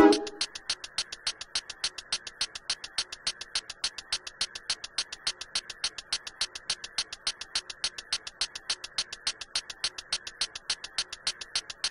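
Fast, even clicking, about five clicks a second, with a faint hiss underneath.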